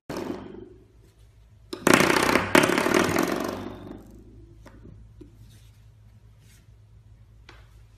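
Coiled-spring door stopper flicked by a puppy, twanging with a buzzing rattle: a short twang right at the start, then a loud one about two seconds in that dies away over a couple of seconds, followed by a few faint taps.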